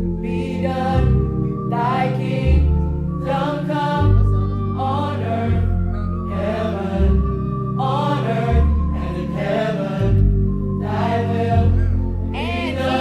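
Gospel choir rehearsing, singing slow phrases that bend in pitch over held low chords that change every second or two, recorded on a phone voice memo.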